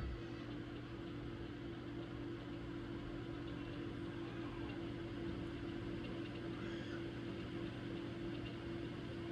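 Steady mechanical hum with a constant low tone, from a small motor or appliance running.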